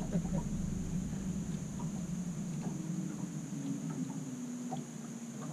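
Steady high-pitched insect buzz, over a low steady rumble, with a few faint ticks.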